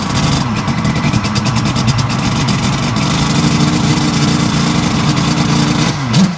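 Crighton CR700W's twin-rotor rotary engine running loud through its short exhaust, rough and crackling with sharp pops at first, then settling to hold a steady speed from about halfway.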